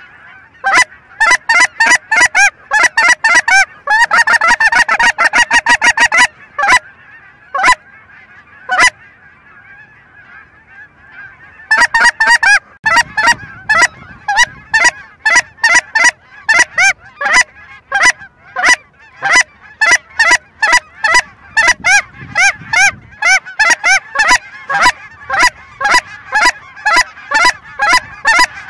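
Geese honking: loud, rapid honks close by over the steady chatter of a large flock. The calling thins to a few single honks for several seconds in the middle, then picks up again.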